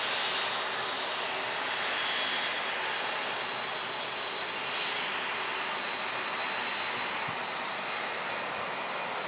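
Jet airliner engines running at taxi power: a steady rushing noise with a faint high whine.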